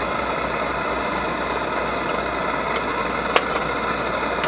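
Gas camp stove burner running with a steady hiss, turned down so that it is much less loud. One short click about three and a half seconds in.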